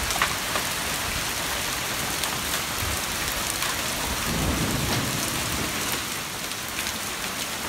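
Hail and rain coming down hard in a steady dense patter on the lawn, brick patio and porch, with scattered sharper ticks of pellets striking. A brief low rumble comes a little past halfway.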